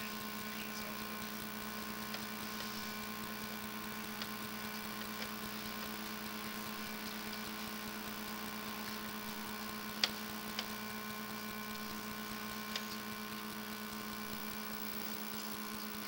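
Steady electrical hum from a sewer inspection camera's recording rig: one strong low tone with several fainter higher tones over a light hiss. A few faint ticks stand out, the sharpest about ten seconds in.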